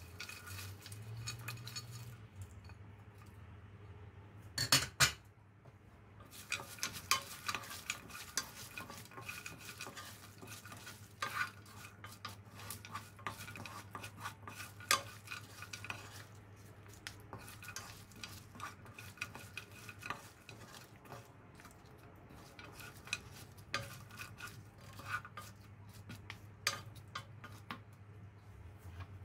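Silicone spatula stirring and scraping dried shrimp, walnuts and almonds around a nonstick frying pan, tossing them in a gochujang glaze: irregular scrapes and light clatter, with two sharp knocks about five seconds in.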